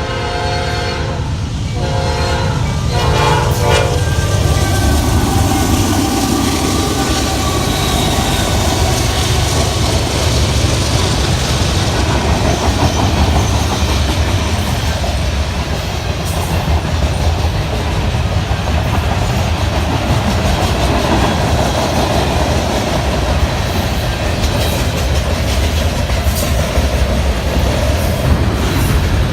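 Train horn sounding a multi-note chord, breaking into short blasts and stopping about three and a half seconds in, then the steady rumble and wheel clatter of the train rolling past on the rails.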